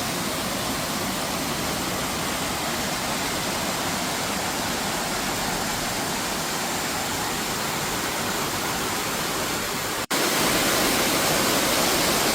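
Waterfall rushing, a steady, even roar of falling water, broken once about ten seconds in by a momentary gap, after which it is a little louder.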